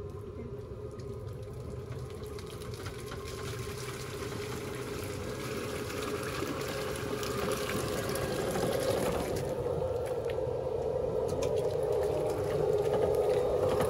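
Water splashing and trickling as the Burro robot cart's wheels run through standing water and wet mud in a flooded vineyard row. The sound is steady and grows louder toward the end.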